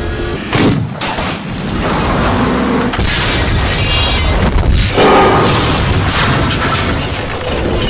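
Tank cannon fire and shell impacts as film sound effects: three heavy booms, about half a second, three seconds and five seconds in, each trailing into a rumbling decay with clattering debris.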